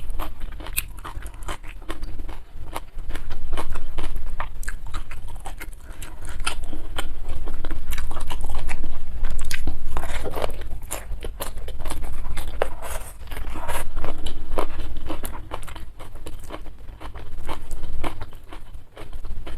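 Close-miked person eating: chewing and biting food, with many sharp wet mouth clicks, coming in waves of a few seconds each.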